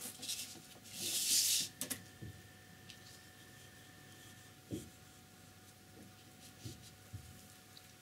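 Flat brush strokes dragging tempera paint across paper, a scratchy brushing sound. The strongest stroke comes about a second in, followed by a few light taps and knocks.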